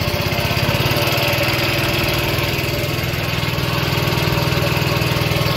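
Small engine running at a steady speed, a fast, even pulsing throb.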